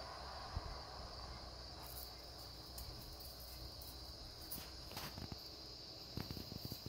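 Faint, steady high-pitched insect trill, with a few soft clicks scattered through it.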